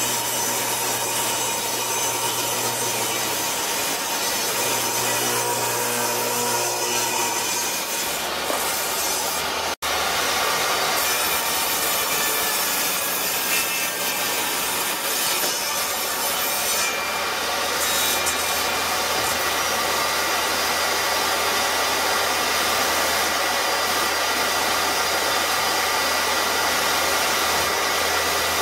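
Jobsite table saw running and cutting through dense wenge hardwood, first a rip along the fence, then crosscuts on a plywood sled. The steady saw noise breaks off for an instant about ten seconds in, then carries on.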